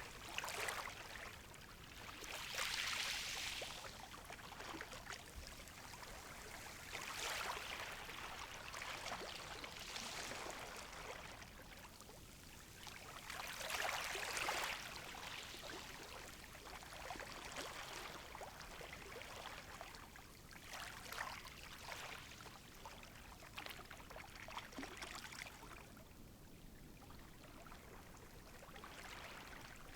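Gentle sea waves washing onto the shore, each wash a soft swell of hiss that rises and fades, about every three to seven seconds.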